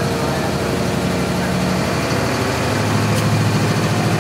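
Vehicle engine running steadily with a low hum, getting a little louder a little under three seconds in.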